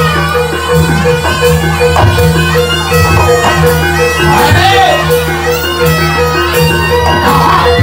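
Live Javanese barongan accompaniment: traditional percussion keeping a steady beat under held, reedy wind-like tones.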